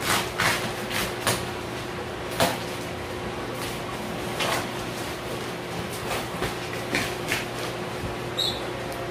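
Plastic and bubble wrap around a cardboard box rustling and crinkling as it is pulled and torn off by hand, in short irregular crackles, over a steady low hum.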